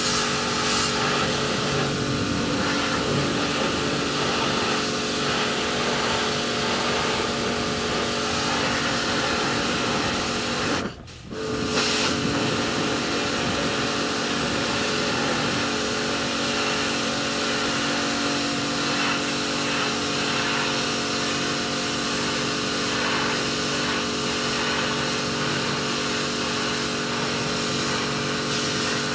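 Electric pressure washer running, its motor humming steadily under the hiss of the water jet spraying a boat's fibreglass deck. It cuts out briefly about eleven seconds in, then resumes.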